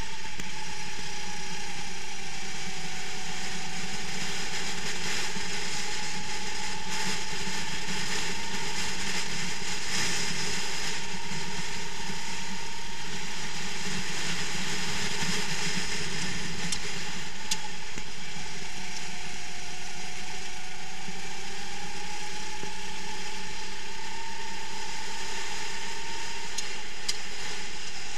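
Kart engine running at racing speed, heard from the kart itself through an onboard camera, its pitch dipping and climbing again twice, with a harsh mechanical rattle and road noise over it.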